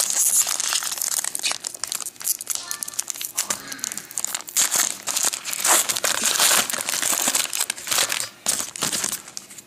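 Crinkling and crackling of a foil trading-card pack wrapper being handled and opened, a dense run of sharp crinkles.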